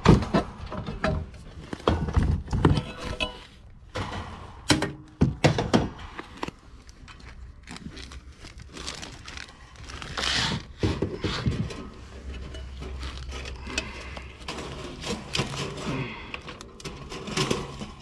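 A sheet-metal electric heat kit being handled and fitted into an air handler: scattered knocks, clunks and scrapes of metal, with rustling of its wiring.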